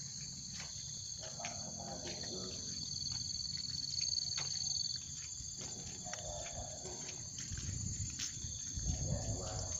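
Insects chirring in a steady, high-pitched chorus of two tones; the lower tone stops about halfway through. A low rumble and scattered clicks run underneath.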